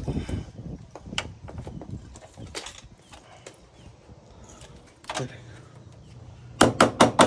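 Metal knocks and clanks of hand tools working on a truck's steel bumper brackets, scattered at first, then a quick run of about five sharp strikes near the end.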